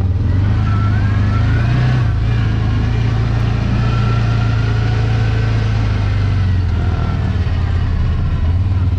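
Motor vehicle engine running steadily under way: a constant low drone.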